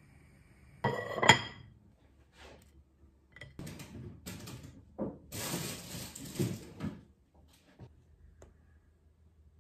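Kitchen containers and dishes being handled on a counter. About a second in comes a sharp, ringing clink, the loudest sound. From about three and a half seconds to seven seconds there is rustling and scraping, then a few faint taps.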